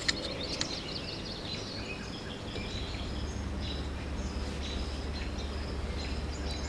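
Birds chirping and singing in the background over outdoor ambience, with a sharp click right at the start and a low steady hum setting in about three seconds in.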